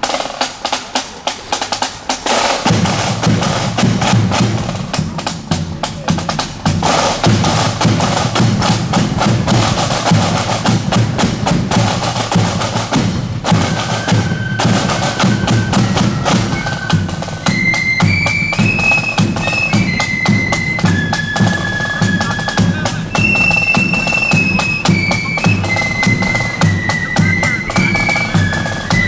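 Marching flute band playing: snare drums rattle alone at first, the bass drum joins after about two and a half seconds, and the flutes come in with the melody about halfway through.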